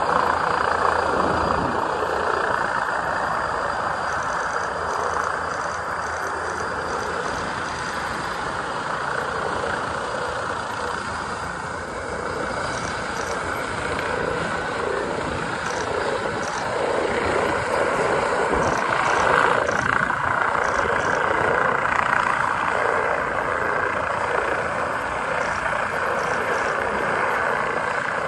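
Air ambulance helicopter heard from a distance: a steady drone of its engine and rotor as it comes down and sets down on the beach.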